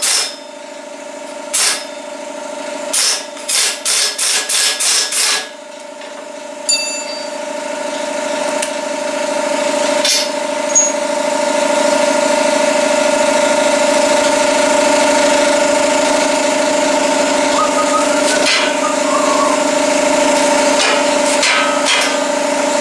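Impact wrench hammering in a string of short bursts on the roll-bar bolts. About seven seconds in, an air compressor starts up and runs with a steady hum that builds and then holds.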